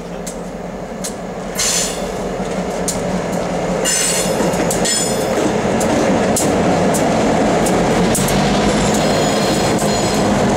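Two Norfolk Southern diesel locomotives passing close with a freight train, engines running and growing louder as they come up. High wheel squeal about two and four seconds in, then the clicking of tank car wheels over the rail joints as the cars roll by.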